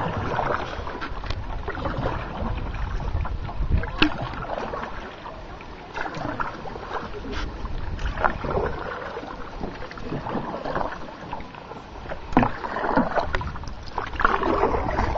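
Wind on the microphone and water lapping around a small paddled boat on a lake, with a few sharp knocks, the loudest about four seconds in and another near twelve seconds.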